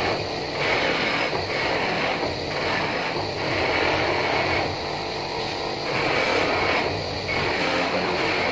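An electric bench polishing motor runs with a cloth buffing wheel loaded with blue compound, grinding against a motorbike's aluminium front wheel hub. The noise swells and dips about once a second as contact with the hub changes.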